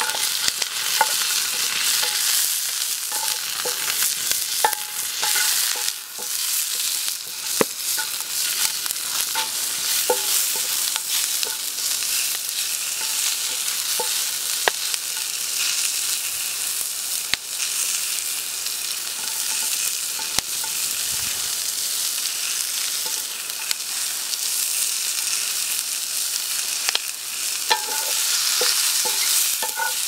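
Mushrooms and vegetables frying in a creamy sauce in a metal frying pan over a campfire, sizzling steadily while a wooden spatula stirs and scrapes through the pan, with scattered sharp clicks throughout.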